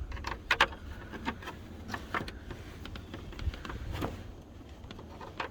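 Scattered light clicks and scrapes of small hard parts: a wire hook being worked through the dashboard fuse-box opening to pull a broken door-jamb light switch down. Low steady background hum underneath.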